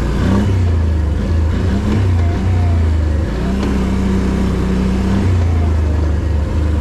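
Can-Am Outlander ATV engine running while the quad is ridden, its revs stepping up and down.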